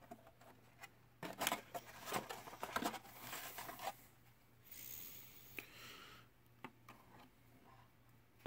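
A plastic RC car interior tray being handled and pressed into the plastic body shell: a run of light clicks, rattles and scrapes, then a brief scraping hiss about five seconds in and a few single clicks.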